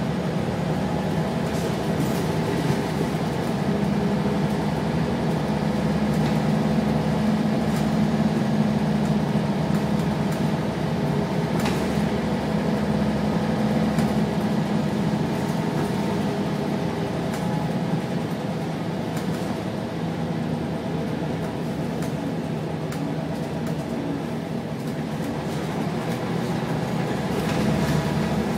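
Scania-chassis Wright Solar single-deck bus heard from inside the passenger saloon while under way: steady engine drone with road noise, and a few short knocks and rattles from the body. The engine note is stronger through the first half, eases off about two-thirds of the way in, then picks up again near the end.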